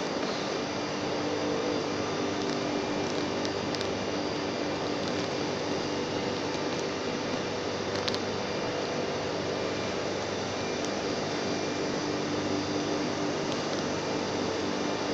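Steady drone of industrial plant machinery: an even rushing noise with a low hum under it, unchanging throughout, with a faint click about eight seconds in.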